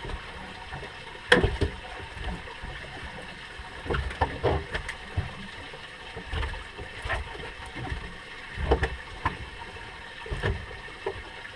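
Handling noises on a small fishing boat: scattered knocks and thumps, the loudest about a second in, over a steady low rumble.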